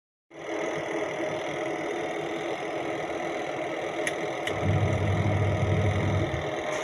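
Semi-automatic twin-tub washing machine running, its motor giving a steady mechanical drone; a deeper hum swells for about two seconds past the middle.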